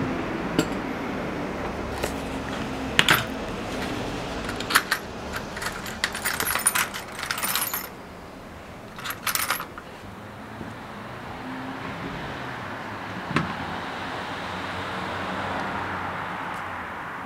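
Small metal drill bits and tools clinking and rattling as they are picked out of a plastic tool case, in several short bursts over the first ten seconds, over steady background noise.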